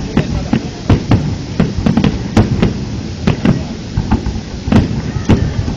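Fireworks display: aerial shells bursting in an irregular string of sharp bangs, about two a second, over a steady low rumble.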